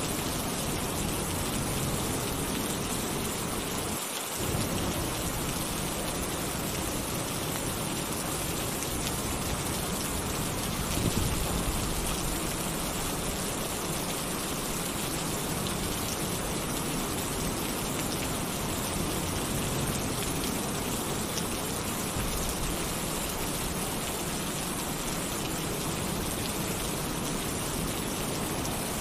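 Heavy rain pattering steadily on a tin roof, an even hiss with no letup. A brief low thunder rumble swells up about eleven seconds in.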